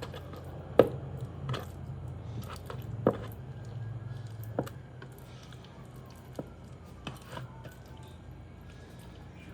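Raw chicken being cut and handled on a cutting board: irregular sharp knocks of the knife on the board, about seven, the loudest about a second in, with wet squishing in between.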